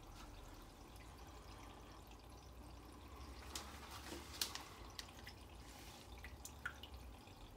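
Aquarium filter water trickling faintly and steadily over a low hum, with a few short drips or ticks around the middle.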